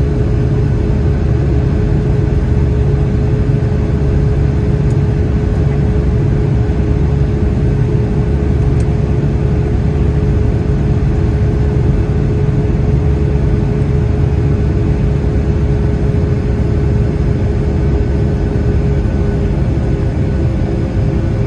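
Cabin noise of a Boeing 757-200 in its initial climb after takeoff, heard from a window seat over the wing: the Rolls-Royce RB211 turbofans running steadily at climb power with airflow rumble, and a steady droning hum over it.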